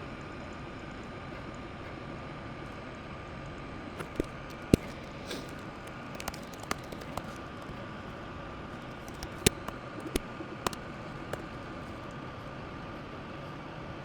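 Steady low room hiss with a faint steady hum, broken by a handful of isolated sharp clicks, the loudest about five seconds in and again near nine and a half seconds.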